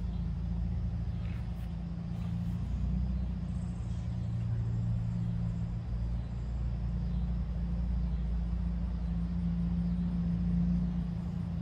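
Steady low drone of a motor running some machinery, a little louder near the end.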